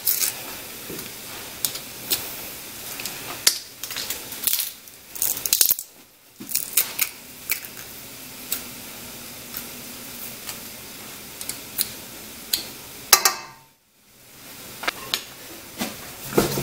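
Metal garlic press squeezing cloves over a stockpot, with irregular sharp clicks and clinks of the press against metal over a steady low hiss. The sound drops out briefly twice.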